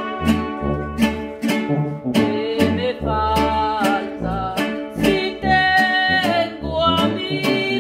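Mariachi band playing live: a woman sings long, wavering notes over a steady strummed guitar beat and deep bass notes.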